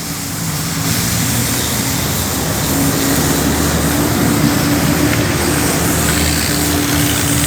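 Homemade arc welding machine running: a steady low electrical hum under a constant crackling hiss.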